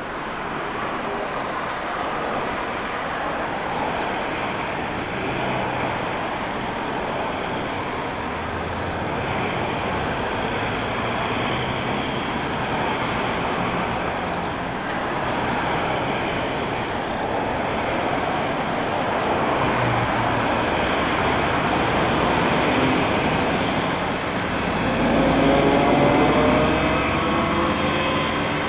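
Jet airliner engines running on the runway: a steady, broad roar that swells about 25 seconds in, with a few rising whining tones, as an aircraft powers down the runway toward the listener.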